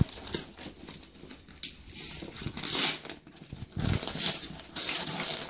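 A paper shipping mailer and the cardboard box inside it being torn open by hand, in several irregular rustling, ripping bursts, the loudest about halfway through and again from near the end.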